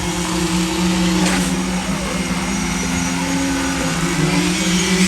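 Engine of concrete-pouring machinery running steadily, its pitch rising and falling slightly.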